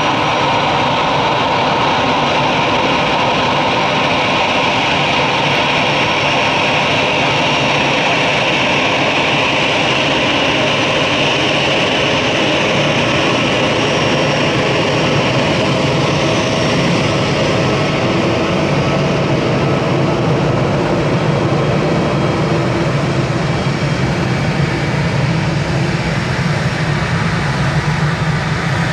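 Airbus A319 jet engines running loud and steady. A high whine fades over the second half while a deep rumble grows stronger.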